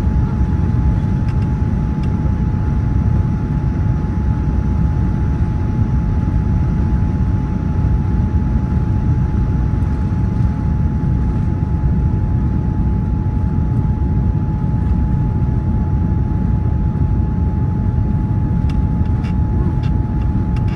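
Steady jet engine and airflow rumble heard inside an airliner cabin during descent, with one constant mid-pitched hum running through it.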